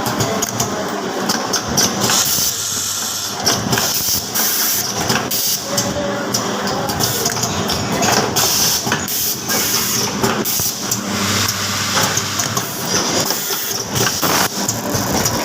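Automatic cable-soldering machine running: a steady mechanical hum with many quick clicks and a hiss like escaping air.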